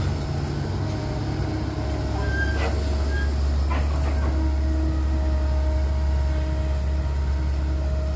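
Caterpillar E120B hydraulic excavator's diesel engine running steadily under load as it swings and digs, a low drone with a faint steady whine over it. A couple of sharp knocks sound about two and a half and four seconds in.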